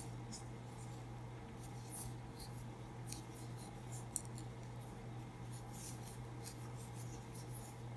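Faint, quick, irregular scratchy rustles of acrylic-looking worsted yarn sliding over a metal crochet hook as single crochet stitches are worked, with one small click about four seconds in, over a low steady hum.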